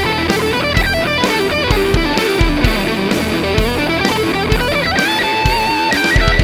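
Electric guitar (2003 Wayne Custom) through a Zvex Box of Metal fuzz pedal into a Marshall JCM800 amp, heavily distorted, playing a fast lead line. About five seconds in it settles on a held note with vibrato.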